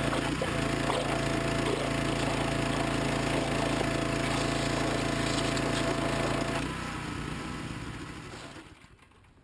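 Pressure washer running: a small engine's steady drone under the hiss of the blaster nozzle jetting water into clay beneath a concrete sidewalk. The sound drops away about two-thirds of the way through and fades down.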